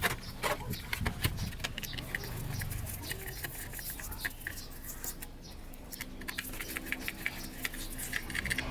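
Rapid small clicks, taps and light scrapes of small metal parts and hand tools being handled on a workbench, thinning out briefly a little past the middle.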